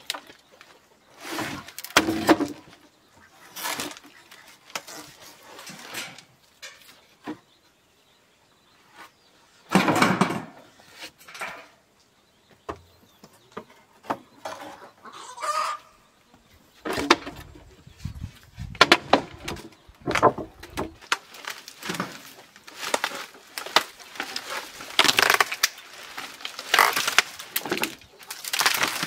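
Bamboo poles and roof panels of a bamboo-and-thatch coop being pulled apart and dropped by hand: irregular knocks, cracks and scraping, with dry thatch rustling. There is a quiet stretch about a third of the way in, and the clatter grows busier over the last third.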